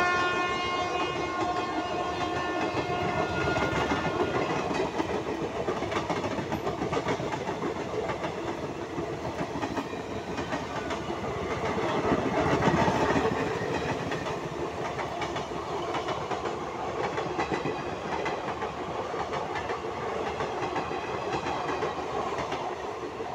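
Passenger coaches of the Netaji Express rolling slowly past at under 30 km/h: a continuous clatter and rumble of wheels on rail that swells briefly about halfway through. A train horn is still sounding at the start and dies away within the first few seconds.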